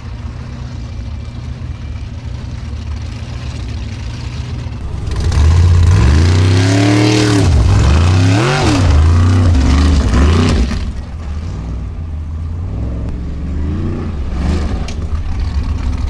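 Formula Offroad buggy's engine running at a low steady note, then about five seconds in revving hard, its pitch climbing and falling several times for about five seconds. It then drops back to a quieter, more distant run with a few smaller revs near the end.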